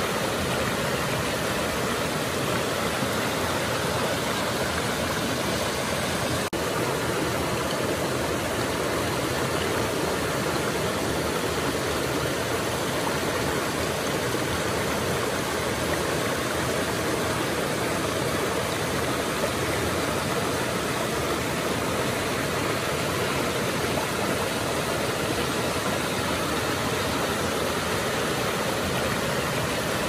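Shallow river running fast over rock ledges and small rapids: a steady, even rush of water.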